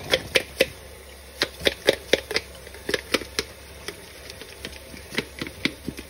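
A bottle brush scrubbing inside a plastic baby bottle: quick clicking strokes in short runs of three or four, about four a second, with the tap running faintly beneath.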